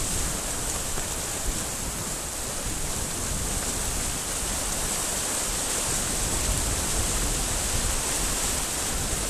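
Steady rushing of water along the hull of a heeled sailboat moving fast, mixed with wind noise.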